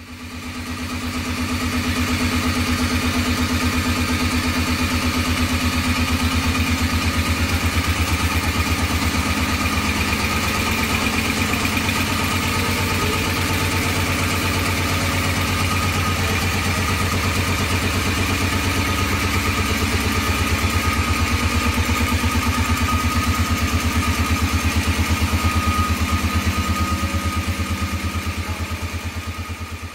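Belliss & Morcom VH series oil-free high-pressure (40 bar) reciprocating air compressor, inverter-driven, running steadily under commissioning. It has a fast, even low pulsing with a steady hum and a higher steady tone on top, and fades in over about the first second.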